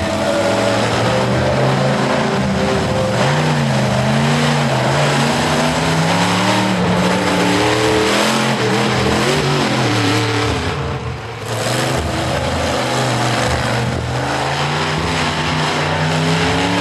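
Monster truck engine revving hard, its pitch climbing and falling again and again as the throttle is worked, with a brief dip about eleven seconds in.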